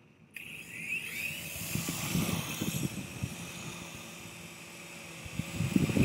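Toy helicopter's small electric motor and rotor starting suddenly about a third of a second in, then running with a steady high whine that rises briefly soon after. A few low knocks sound under it.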